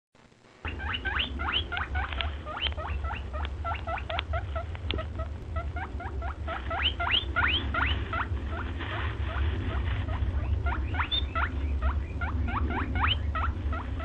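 Small animals squeaking rapidly: many short, high squeaks, each sweeping upward in pitch, several a second, over a steady low hum.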